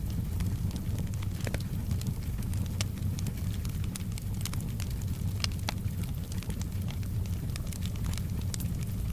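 Wood fire in a fireplace crackling, with sharp pops scattered irregularly over a steady low rumble.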